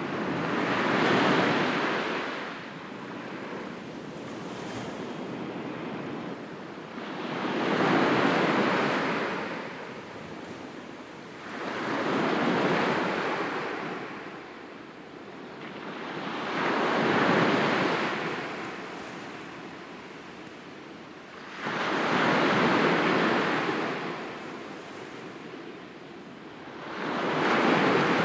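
Sea waves breaking on a shore: six waves, one every five seconds or so, each surging up and washing back, with a softer steady wash between them.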